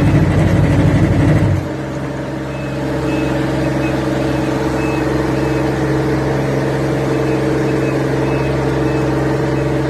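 Small road roller's engine running steadily, with a loud low pulsing over it that cuts off abruptly about a second and a half in, leaving the engine running on its own.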